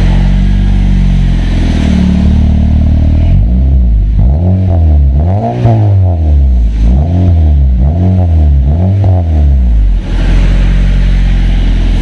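Honda Civic FD exhaust fitted with an axle-back system, resonator deleted and a chambered muffler, idling. About three seconds in the engine is blipped in a quick series of six or seven revs, each rising and falling, then it settles back to idle near the end.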